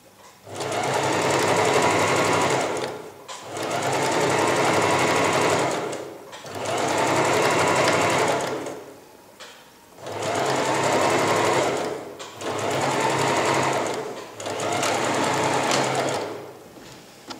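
Domestic sewing machine stitching a zipper onto fabric. It runs in five spells of two to four seconds each, stopping briefly between them.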